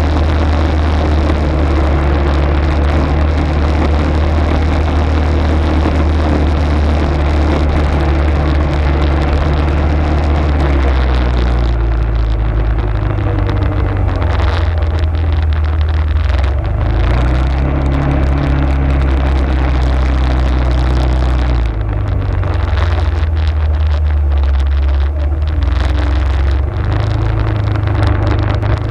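Arctic Cat ATV engine running under way. The note holds steady for the first ten seconds or so, then drops and changes pitch several times as the throttle is opened and eased.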